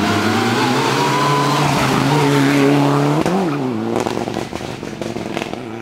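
Mitsubishi Lancer Evolution rally car's turbocharged four-cylinder engine held at high revs as it passes through a corner, with a quick dip and rise in revs about three seconds in. The note then fades as the car pulls away, with a run of sharp crackles.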